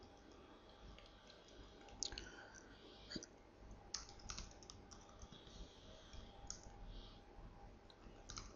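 Faint computer keyboard keystrokes and clicks, sparse and irregular.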